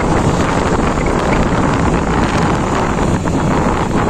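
Steady wind rush on the microphone of a moving motorcycle, with the bike's engine and road noise running underneath.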